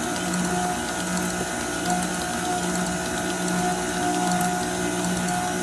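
Electric stand mixer running at low speed, its wire whisk beating flour into chocolate sponge-cake batter in a metal bowl: a steady motor and gear whir that swells slightly at regular intervals.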